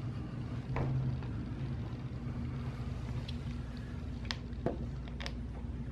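A steady low hum, with a few faint light clicks as a nail is fitted into a small plastic nail-holding tool and set against the edge of a particleboard panel.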